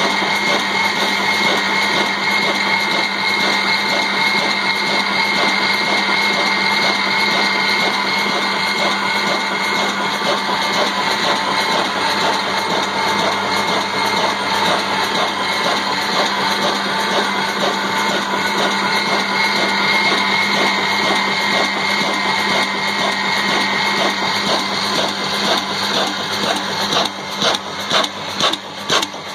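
Old Ruston Hornsby stationary diesel engine running steadily with its large flywheel turning, a loud dense mechanical clatter with a constant whine over it. Near the end a slow heavy beat comes through, about one and a half a second.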